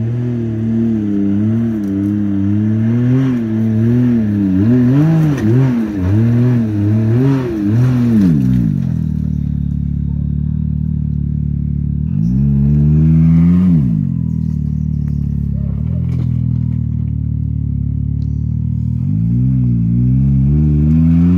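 Can-Am side-by-side engine revving in repeated pulses under load on a steep rocky climb, its pitch rising and falling several times over the first eight seconds. It then settles to a steady lower run, with two shorter revs: one about twelve seconds in and one near the end.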